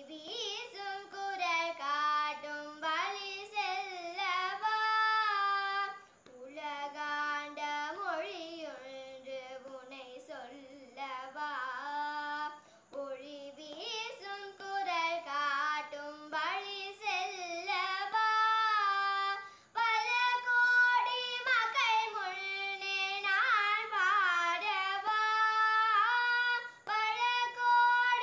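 A young girl singing a Tamil song solo and unaccompanied in Carnatic style, moving between held notes and quick wavering ornaments, with brief pauses between phrases.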